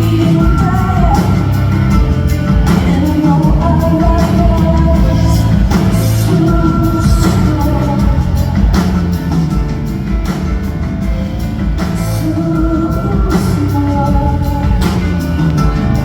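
Live rock performance: a woman singing over a loud band with a steady beat, heard in a large hall.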